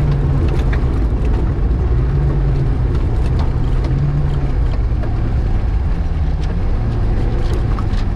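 In-cabin sound of a VAZ 2105 rally car's four-cylinder engine running hard on a gravel stage, with scattered sharp ticks of gravel striking the car. The engine note drops for a couple of seconds past the middle, then rises again near the end.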